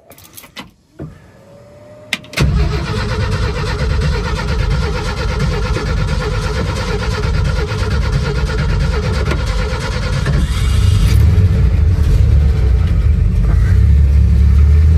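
Old pickup truck's engine catching suddenly about two seconds in, after a couple of clicks, then running steadily, with a heavier, louder rumble in the last few seconds.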